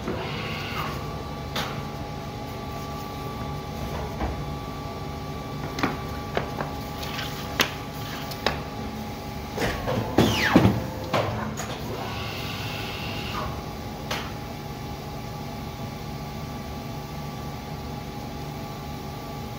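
Perfecta Seypa 92 PMC guillotine paper cutter running with a steady hum while cutting a stack of 115 g coated cover paper, with repeated clicks and knocks from the machine's cycles. The loudest moment, about ten seconds in, is a sweeping sound that falls in pitch.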